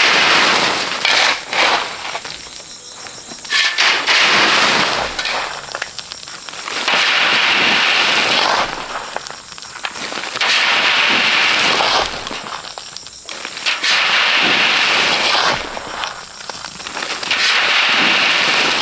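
Coarse sand being dug and tipped by hand, a gritty crackling rush repeated about every two to three seconds.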